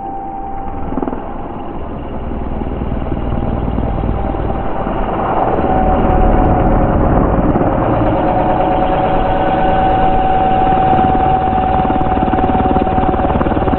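Flywing Bell UH-1 Huey RC helicopter in flight: a steady rotor rush with a motor and gear whine on two notes, growing louder about five seconds in.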